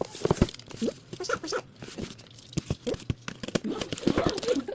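Packaging being handled and torn open: irregular crinkling, tearing and tapping.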